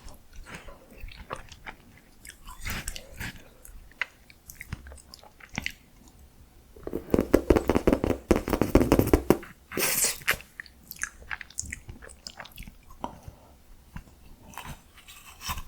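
Close-miked eating of miniature ice cream: wet mouth clicks and smacks from biting and chewing, with a dense run of rapid crunching about halfway through, followed by a sharp crisp bite.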